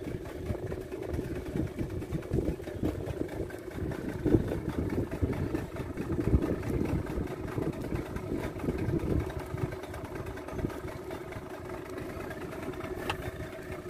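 A fishing boat's engine idling with a steady hum, under an uneven low rumble.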